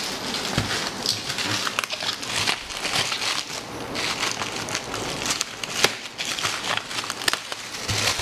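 Bubble wrap being handled and pulled off a boxed router, its plastic crinkling and crackling irregularly with many small sharp clicks.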